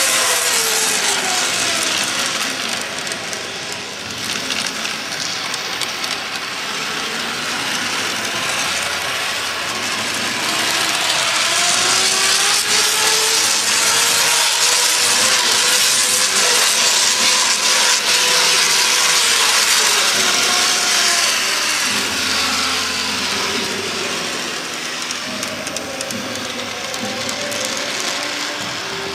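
H0-scale model tram running around a layout under a steady hiss, with a faint whine that slowly rises and falls in pitch as it changes speed. The hiss grows louder in the middle for about ten seconds.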